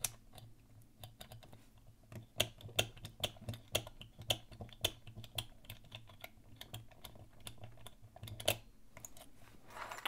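Irregular, sharp clicks of the combination code wheels on an Abus key lockbox being turned one by one with a thumb. A feeler-gauge shim holds them bound while he feels for the loose spot that gives away each digit of the combination.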